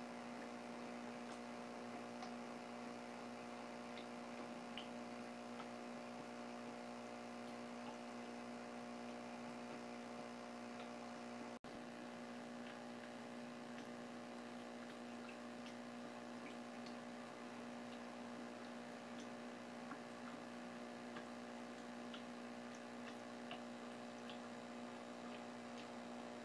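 A steady electrical hum made of several constant pitched tones, with faint scattered ticks. The sound drops out for an instant a little before halfway.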